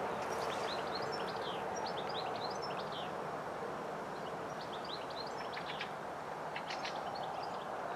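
Small songbirds chirping in quick runs of short, high notes over a steady background rush, once in the first few seconds and again past the middle.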